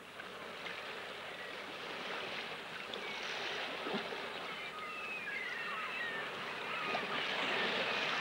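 Water washing steadily, growing slowly louder, with many short high bird chirps falling in pitch over it.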